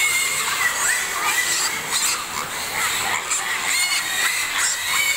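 A group of piglets squealing, many high squeals overlapping without a break.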